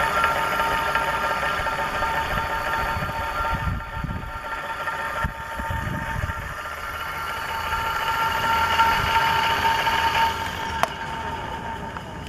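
Brushless geared front hub motor (48V 500W) spinning its 20-inch wheel with no load: a steady whine of motor and gears over a whirring hum. The whine eases off about ten seconds in, followed by a single click.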